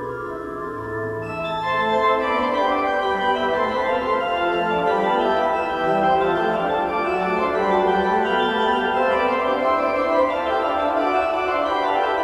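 Organ playing a piece with several moving lines of sustained notes; about a second and a half in it grows fuller, brighter and louder.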